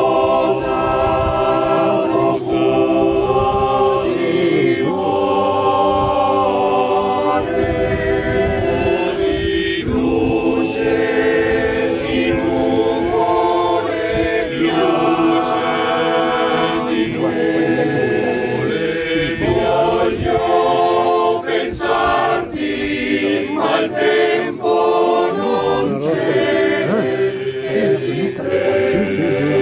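Choir singing in long held phrases, with brief breaks between them.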